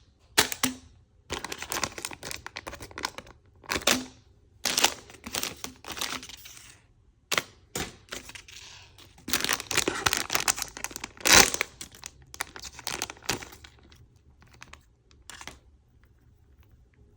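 Packaging being unwrapped by hand: irregular bursts of crinkling and rustling with a few sharp tearing crackles, the loudest about eleven seconds in, dying away over the last couple of seconds.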